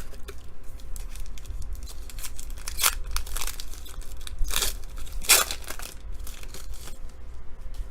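A foil trading-card pack wrapper being torn open and crinkled by hand, with several short rips, the strongest about three and five seconds in.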